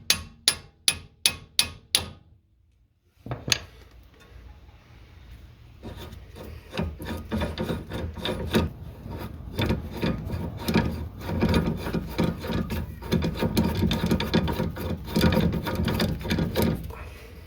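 Hammer tapping the outer tie-rod end's stud out of the steering knuckle: about six quick sharp strikes, then one more after a short pause. From about six seconds there is a long stretch of rapid metal-on-metal scraping and clicking from work on the tie rod.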